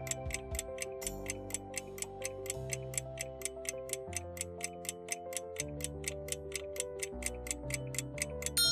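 Clock-ticking sound effect for a countdown timer, about four ticks a second, over soft background music with slowly changing chords. Near the end a bell-like ding rings out as the countdown runs out.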